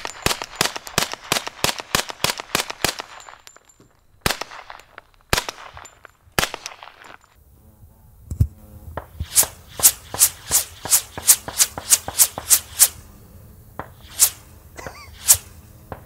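Suppressed .45 ACP subsonic rounds coming in downrange as sharp snaps. A quick string of about five a second runs for the first three seconds, then come single snaps about a second apart, then another quick string from about nine to thirteen seconds, and two more single snaps near the end.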